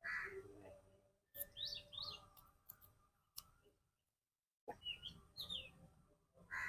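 Small birds chirping faintly: short rising-and-falling chirps in two groups, about a second and a half in and again about five seconds in, with a few faint clicks between.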